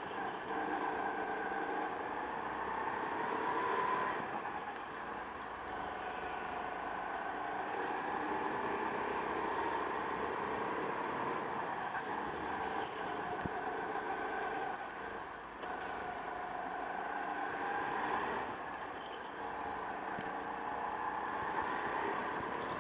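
Go-kart engine heard from a camera mounted on the kart, its note climbing as it accelerates and falling as the throttle is lifted, with clear drops about four seconds in and again around fifteen and nineteen seconds.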